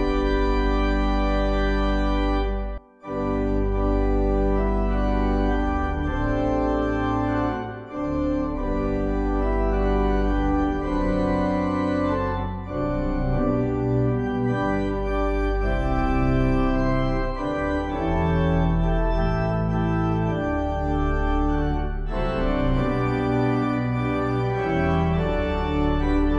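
Organ music playing held, sustained chords that change every second or two, with a brief break about three seconds in.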